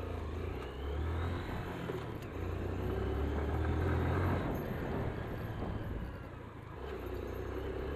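Hero Karizma ZMR motorcycle's single-cylinder engine running under load as the bike climbs a steep dirt hill track. The engine note is loudest around the middle and eases off a little near the end.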